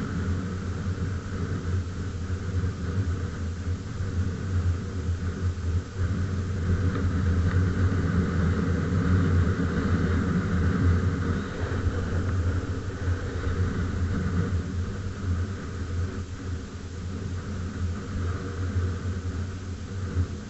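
Honda XR250 Tornado's single-cylinder four-stroke engine running steadily, with a low rumble and small swells in loudness.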